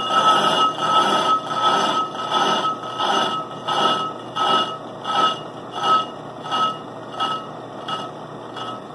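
Ammco brake lathe's twin cutting bits scraping across both faces of a spinning brake rotor, a metallic scrape with a ringing tone that pulses about one and a half times a second. The pulses fade out near the end as the resurfacing cut finishes.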